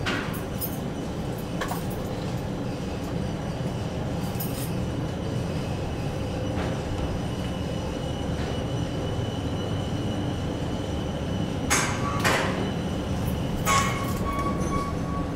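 Eizan Cable funicular car giving off a steady low rumble, with a few sharp clicks and knocks about twelve and fourteen seconds in. The last knock is followed by a steady high tone.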